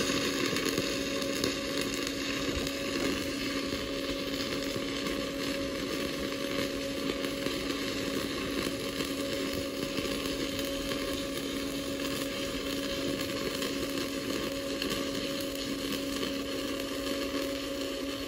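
Shielded metal arc welding with a 7018 electrode at about 135 amps DC electrode positive on quarter-inch mild steel: the arc burns with a smooth, steady crackle and sizzle as the bead is run along the butt joint, over a steady low hum.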